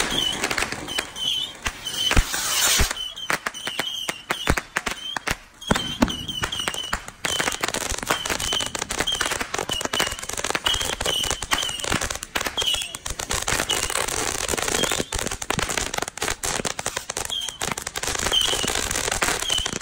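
Ground fountain firework burning, spraying sparks with dense crackling pops throughout, among them short high chirps that recur every half second or so.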